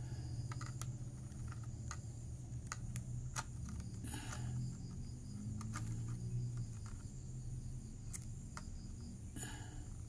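Scattered light clicks and taps from a green plant stalk being worked in a plastic cup of soft food mash, with a short rustle about four seconds in and again near the end. Under them runs a steady low hum and a faint high insect chirring.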